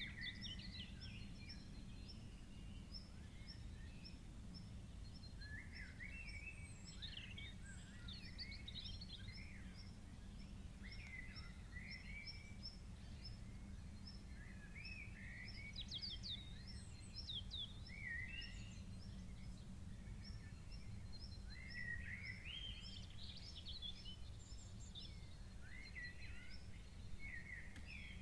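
Several birds calling and singing, with varied chirps and short trills, over a steady low rumble. A quick series of short high notes repeats at an even pace through much of it.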